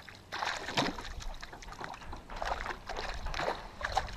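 Hooked trout thrashing at the water's surface as it is reeled in: a run of irregular splashes.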